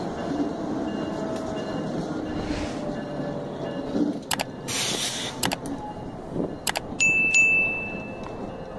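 Diesel locomotives rumbling past at slow speed. About four seconds in, a subscribe-button animation's sound effects play over the train: a click, a short whoosh, more clicks, then a bell ding that rings on and fades.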